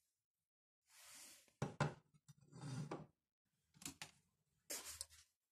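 Metal tools being handled on a wooden workbench: a short scrape, then sharp clacks and knocks in a few brief clusters. The loudest clacks come about two seconds in.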